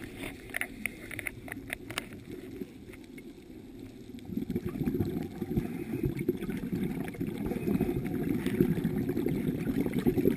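Scuba exhalation bubbles rumbling and gurgling, muffled as heard underwater. A few sharp clicks come in the first two seconds, then a quieter spell, then a long stretch of bubbling from about four seconds in.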